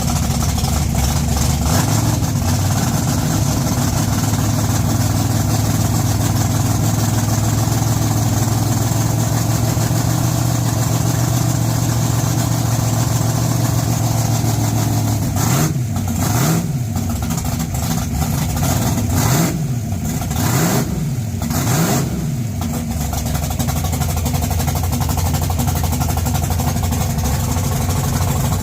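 1969 Camaro drag car's engine idling steadily, then blipped about five times in quick succession past the middle, each rev rising and falling, before settling back to idle.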